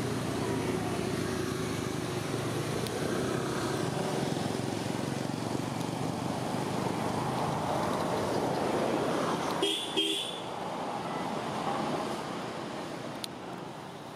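Motor vehicle engine running on a nearby road, growing louder as it passes, with two short horn toots about ten seconds in.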